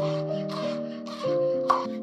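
A chef's knife slicing through green onions on a wooden cutting board, a crisp crunching cut followed by a sharp knock of the blade on the board near the end. Gentle instrumental background music plays underneath.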